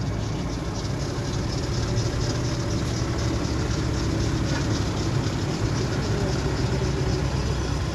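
Tram running along its rails, heard from inside the passenger car: a steady low rumble of wheels and motor with a hiss above it.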